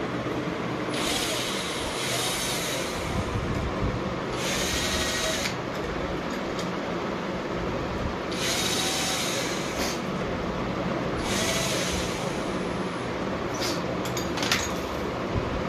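Cordless drill-driver whirring in four short runs, driving the stem bolts of a bicycle being assembled. A few sharp clicks come near the end.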